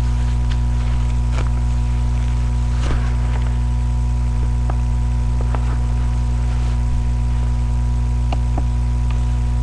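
Steady electrical hum made of several fixed low tones, with faint scattered ticks over it.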